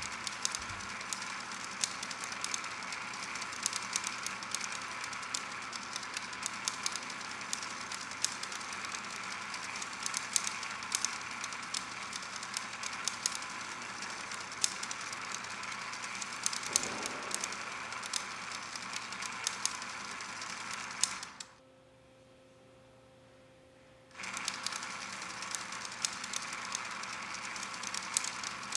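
Motorized flipbook machine running: a steady motor hum under fast, continuous clicking of the flipping pages. About three-quarters of the way through, the sound cuts out abruptly for about three seconds, then resumes.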